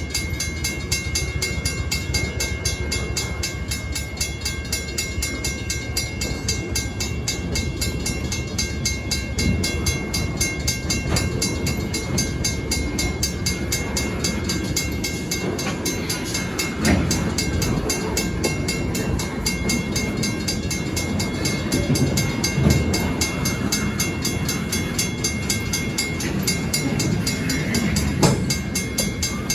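Stockton Terminal and Eastern freight train running, with a steady low rumble and a faint steady high tone. Two sharp knocks sound over it, one about halfway through and one near the end.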